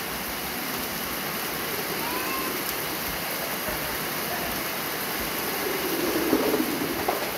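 Rain falling steadily on a wet yard, a constant hiss, swelling a little about six seconds in.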